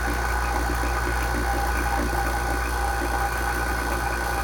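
Vacuum pump running steadily, a continuous low hum with a steady whine over it, pulling down a vacuum chamber whose pressure has levelled off near the pump's limit.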